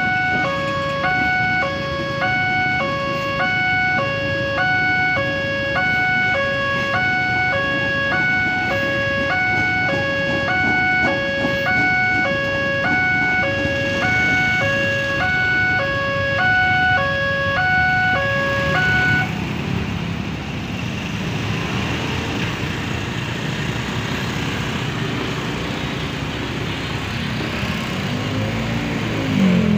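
Railway level-crossing warning siren sounding a two-tone high-low alternation, about one high-low pair a second, which stops about two-thirds of the way through. A steady rumbling noise follows, with a brief louder sound sliding in pitch at the very end.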